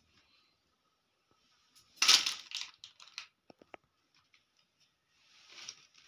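Rustling and handling noise close to the microphone: a loud rustle about two seconds in, a few sharp clicks and taps after it, and a softer rustle near the end.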